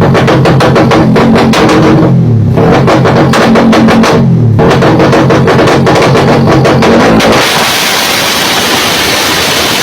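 Loud rock music with a driving drum beat and distorted guitar, with falling pitch sweeps twice. From about three-quarters of the way in it turns to a noisy hiss-like wash.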